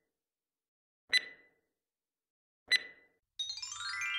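Countdown sound effect: two sharp, bright ticks about a second and a half apart, then a quick falling run of ringing chime notes that hold on together.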